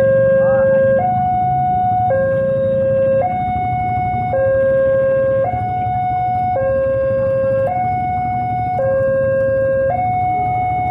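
Railway level-crossing warning alarm sounding two tones in turn, low then high, switching about once a second, over a low rumble.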